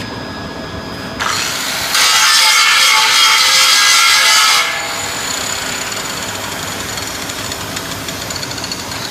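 Power grinder cutting into metal: it runs steadily, bites in lightly a little after a second, then grinds hard and loud for about two and a half seconds as it is pressed deeper into a stubborn spot, before easing off and running on more quietly with a thin high whine.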